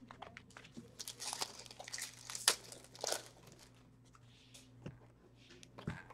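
Trading cards and their wrappers being handled on a table: irregular crinkling and rustling with light clicks, busiest in the first few seconds and sparse near the end.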